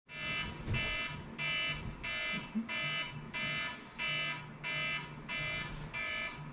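Wake-up alarm beeping in a steady repeating pattern, about three beeps every two seconds, each beep a bright multi-tone chirp.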